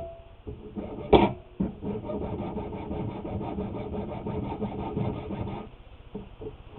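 A hand file rasping on a small plastic part clamped in a small bench vise. A sharp knock comes about a second in, then continuous rubbing file strokes that stop near the end.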